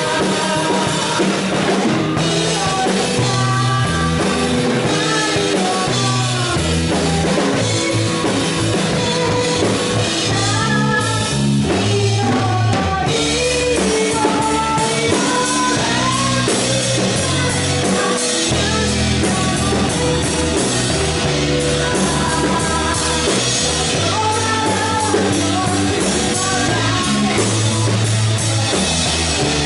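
A live band playing a J-pop-style song: a drum kit heard close up, with keyboard, and a woman singing the melody.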